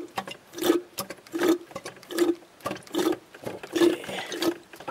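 Small hand pump sucking power steering fluid out of the reservoir: a regular wet, gurgling suck with each stroke, about one stroke every three-quarters of a second.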